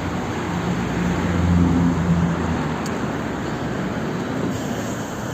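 Road traffic noise, with a motor vehicle's engine hum swelling and fading as it passes about a second and a half in.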